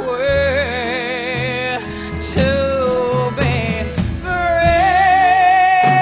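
A woman singing a slow ballad live, drawing out long notes with vibrato over a soft instrumental backing with bass notes. About four seconds in she holds one long high note.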